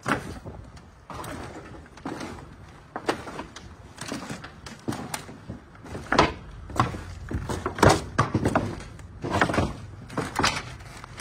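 Footsteps crunching and clattering over earthquake rubble of broken concrete and loose sheet metal, with irregular knocks and scrapes about one to two a second, heavier in the second half.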